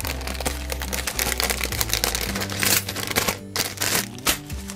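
A clear plastic bag crinkling and thin metal cutting dies clicking against each other as they are handled and slid back into the bag, with background music underneath.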